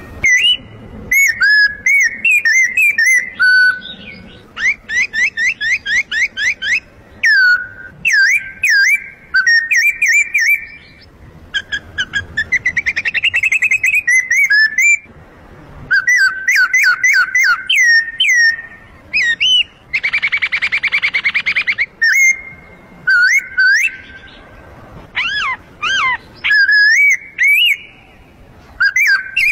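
A man mimicking bird song on a small call held in his mouth: quick chirps, whistled swoops and rapid trills, with a buzzy rolling trill about twenty seconds in. This is mouth-call mimicry of the kind slingshot hunters use to lure birds within range.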